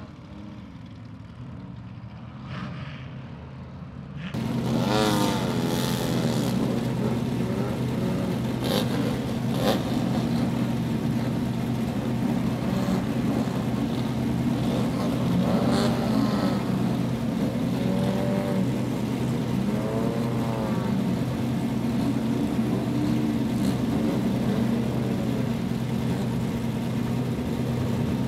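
Several off-road race buggies' engines running, with repeated revs rising and falling over a steady drone. The sound is quieter for the first few seconds, then becomes louder and fuller about four seconds in.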